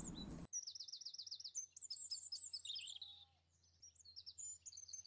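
Small songbirds chirping and calling, faint: a quick run of repeated high chirps about half a second in, then scattered chirps and short trills.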